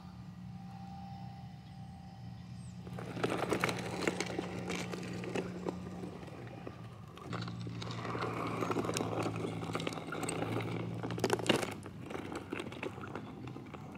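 Small wheels of a dolly crunching and rattling over dirt and grit as it is towed, starting about three seconds in, over a faint steady low hum.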